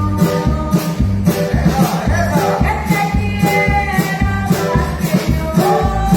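Electronic-keyboard arrangement of a Latin song playing, with held melody lines over a steady beat and shaker-like percussion.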